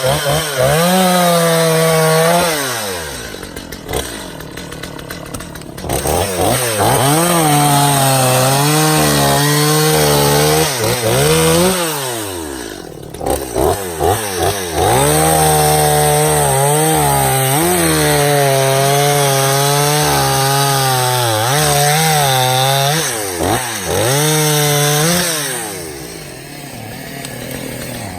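Stihl two-stroke chainsaw cutting black locust firewood: it revs to full throttle, its pitch sagging and recovering as the chain works through the wood, and falls back to idle between cuts, at about 4 seconds in, briefly in the middle, and again near the end.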